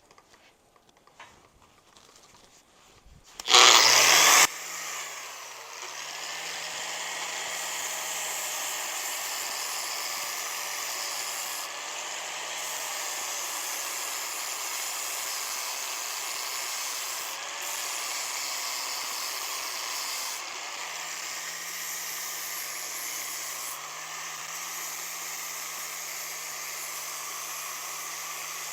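Angle grinder cleaning up the edge of a steel piece: a short, very loud burst about four seconds in, then a steady grinding hiss over the motor's hum for the rest.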